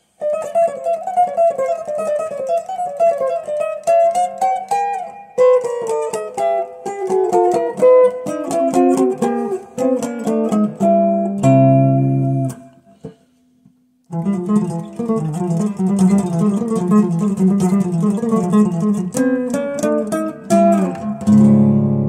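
Electric guitar playing quick melodic runs of single notes, with a short break of about a second a little past halfway before the playing resumes.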